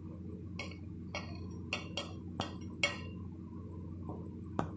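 Light clinks of crockery, about six quick taps in under three seconds and one more near the end, as the plate of ground spice mix is tapped to knock the masala onto the mango pieces. A steady low hum runs underneath.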